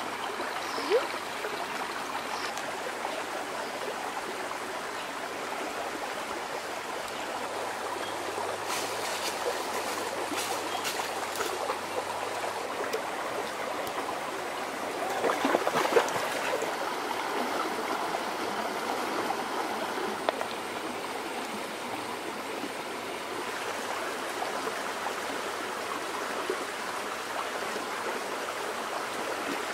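Shallow rocky stream trickling and babbling steadily, with a short louder stretch of splashing about halfway through.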